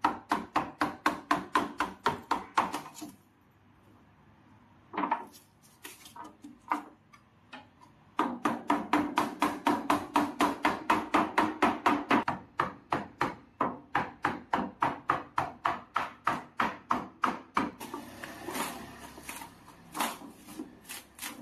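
Quick, regular hammer taps, about four or five a second, in several runs with short pauses, knocking loose the refrigerator's rear panel during disassembly.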